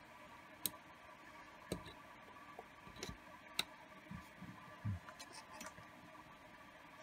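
Metal clarinet keys clicking against the upper joint as they are fitted and handled: a handful of sharp, separate clicks, then a few soft knocks about four to five seconds in.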